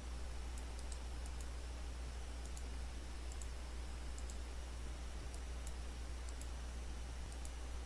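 Computer mouse clicking: scattered light clicks, some in quick pairs, over a steady low electrical hum.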